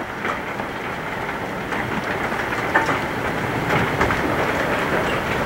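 Hail mixed with rain pelting down, a dense clatter of many small hailstone impacts on the ground and surroundings, growing gradually louder. The hailstones are big enough to dent cars.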